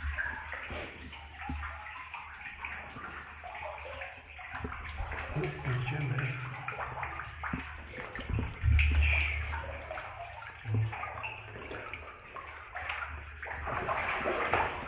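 Water sloshing and splashing as a person wades through the flooded floor of a mine adit, step after step, with a dull low thump near the middle.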